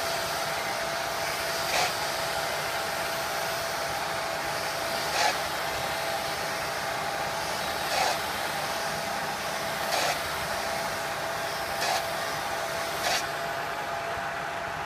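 Benchtop belt sander running steadily while a polyurethane mallet head, spun in a corded hand drill, is held at an angle against the belt to round its end. The sanding hiss has six short, louder rasps every couple of seconds and stops near the end, while the sander keeps running.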